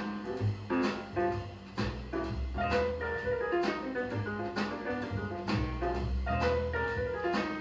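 Small-group jazz with drums and a walking double bass, played from vinyl through a home-built 2A3 single-ended Loftin-White tube amplifier and JBL 4312D monitor speakers.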